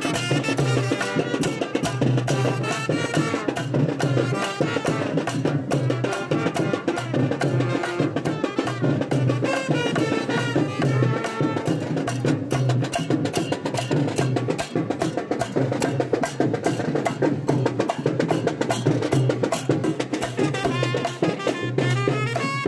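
Traditional Sri Lankan perahera drum music: fast, dense drum strokes over a pulsing low beat, with a wavering high melody running through it.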